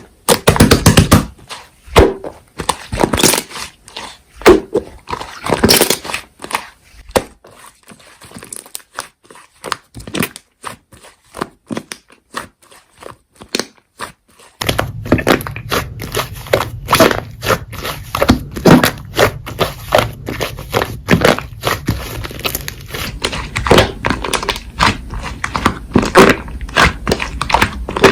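Slime being squeezed and pressed by hand, making a dense run of sticky clicks and pops. About halfway in a steady low hum joins underneath, and the clicks continue over it.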